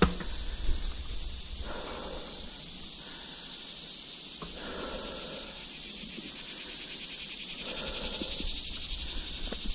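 Steady high-pitched insect chorus, crickets or katydids in the grass meadow, over the riding noise of a mountain bike on a dirt singletrack: tyre and wind rumble with soft swells every few seconds and a sharp knock at the start.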